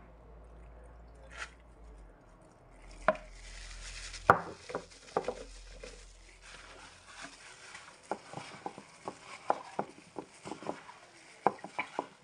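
Plastic-gloved hands working a raw whole chicken in its marinade in a bowl: irregular wet squelches, slaps and light knocks against the bowl, coming thicker in the second half.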